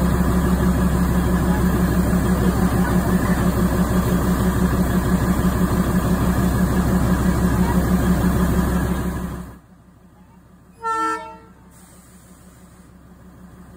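Narrow-gauge NDM6 diesel locomotive engine idling with a steady low hum, its sound dying away quickly about nine and a half seconds in. About a second later a single short horn toot sounds.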